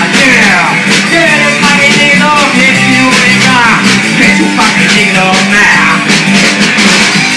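Rock song in an instrumental passage: electric guitar playing sliding, bending notes over bass and a steady drum beat.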